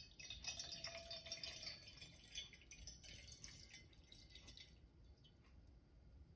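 Faint trickle of a thin water stream from a long-reach drinking-water faucet running into a stainless steel tumbler, with small dripping ticks. It fades away about two-thirds of the way through.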